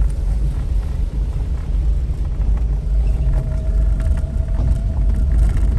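Car driving on the road, heard from inside the cabin: a steady low rumble of engine and tyres, with a faint steady hum joining about three seconds in.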